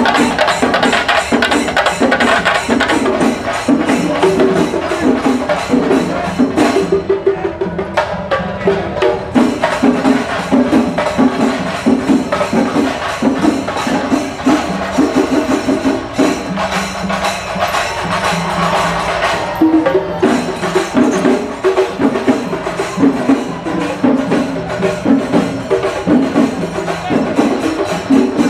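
Chenda melam: an ensemble of Kerala chenda drums beaten with sticks, playing a fast, dense, driving rhythm.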